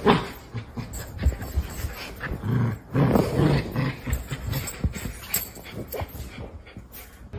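A dog vocalizing in a series of low, grumbling growl-like sounds, as a talkative dog does when 'answering' its owner, with a few clicks and knocks in between.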